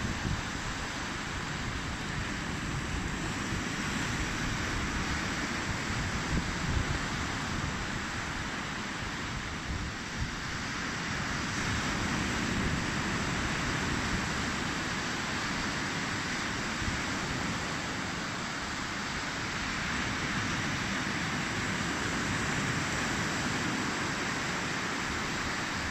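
Waves breaking on a beach and wind on the microphone: a steady rushing noise that swells and eases slowly.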